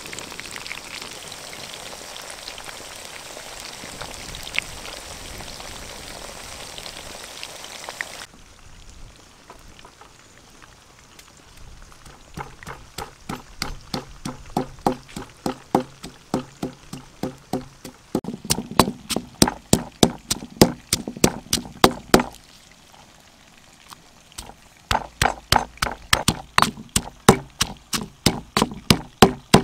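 Fish and banana blossom frying in hot oil in a pan, a steady sizzle with crackles that cuts off about eight seconds in. Then a stone pestle pounding red chillies in a stone mortar, a little over two ringing knocks a second, pausing for a couple of seconds before resuming.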